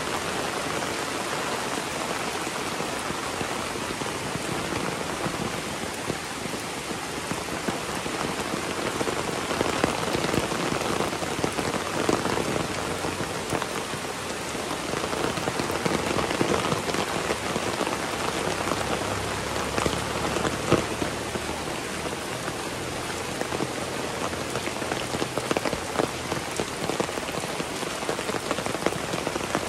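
Heavy rain falling steadily, with many separate drop hits heard close by, swelling a little in the middle.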